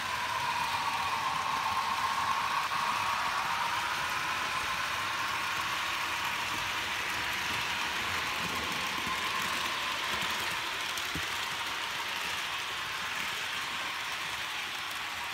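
HO-scale model trains running on the layout: a steady whine from a locomotive's electric motor that wavers slightly in pitch, over the hiss of wheels rolling on the track.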